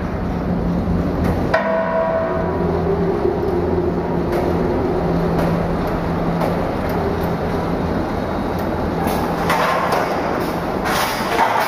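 Stainless steel tube bagging machine, a horizontal flow-wrap packer, running: a steady mechanical hum with a faint whine and a few sharp knocks, about a second and a half in and twice near the end.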